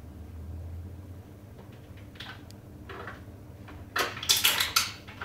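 Dishes and utensils knocking and clattering while the kitchen is tidied: a couple of light knocks, then a loud burst of clatter about four seconds in.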